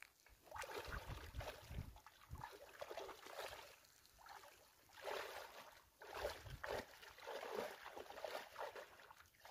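Shallow pond water sloshing and splashing in irregular bursts as two people wade through it, dragging a fine-mesh fishing net.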